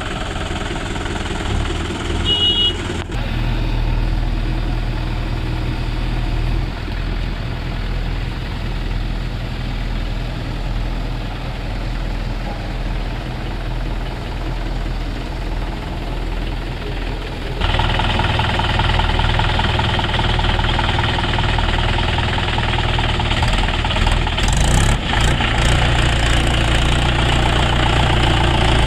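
Heavy diesel engines running steadily: the Mahindra 575 DI tractor's four-cylinder engine and a JCB 3DX backhoe loader at work. The engine sound changes abruptly about three seconds in and again about eighteen seconds in, then runs louder and fuller to the end.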